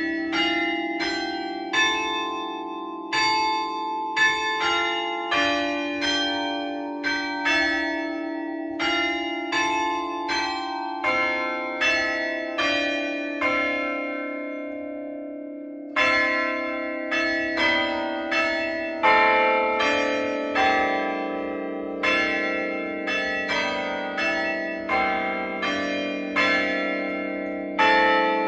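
Church tower bells of different pitches struck one after another, about two to three strokes a second, each note ringing on under the next. A little past halfway the strokes pause for about two seconds while the bells fade, then the ringing resumes.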